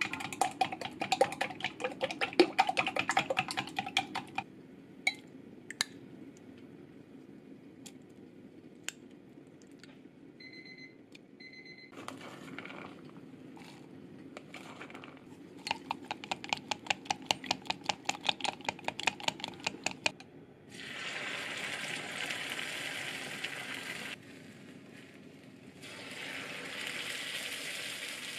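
Wooden chopsticks beating an egg mixture in a glass measuring cup, fast rapid clicking against the glass, in two spells. From about two-thirds of the way in, egg batter sizzles as it is poured into a hot square tamagoyaki pan, twice, with a short pause between.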